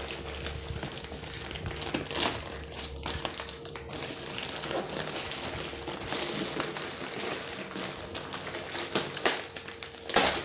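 Plastic mailer bag and a tape-wrapped brown paper parcel crinkling and rustling as they are handled and the parcel is worked out of the bag, with sharper crackles about two seconds in and near the end.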